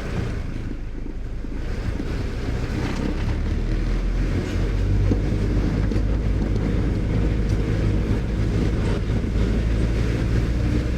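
A vehicle driving, with a steady engine and road rumble that grows louder about three seconds in, and some wind buffeting the microphone.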